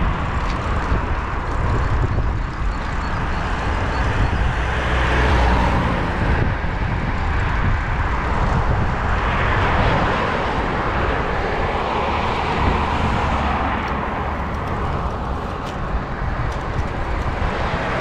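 Traffic on a main road passing close alongside: a steady rush of cars with swells as each goes by, one of the louder swells about ten seconds in as a car passes.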